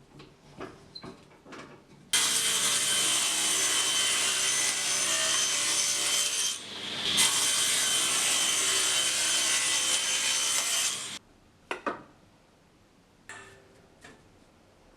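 Table saw cutting through wood for about nine seconds, with a brief dip in the cut about halfway through. Short knocks of handling wood come before and after the cut.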